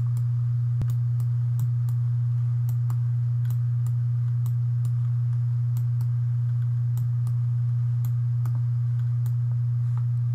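A steady low electrical hum, with light computer mouse and keyboard clicks scattered over it, about one or two a second.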